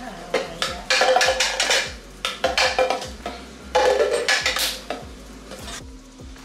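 Red plastic party cups tapped and flipped onto a stone countertop, with butter knives clattering. Background music with a steady beat plays underneath.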